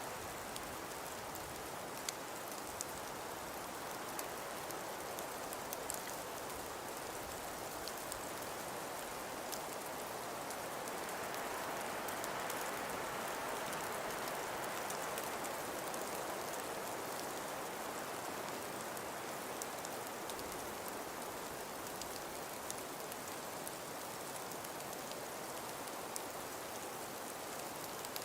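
Steady wind with snow falling, a hiss peppered with many faint ticks. The wind swells into a gust near the middle and then settles back.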